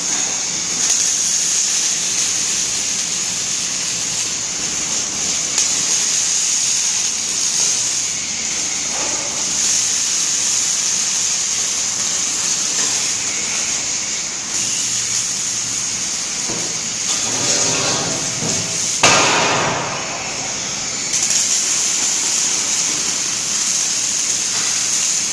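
Steady, hissing crackle of a six-axis welding robot's arc, with a brief louder surge and a short change in the sound about three-quarters of the way through.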